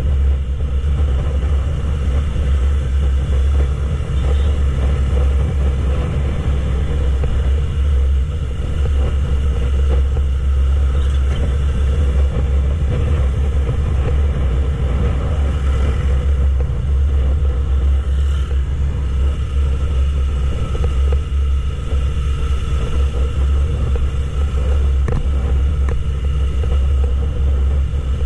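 Steady wind rumble on a helmet camera's microphone while riding a Yamaha YZF-R3 at cruising speed, with the bike's 321 cc parallel-twin engine running evenly underneath.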